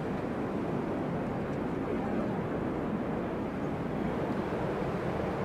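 Steady rushing noise of strong wind mixed with distant jet aircraft noise. A faint steady hum joins about four seconds in.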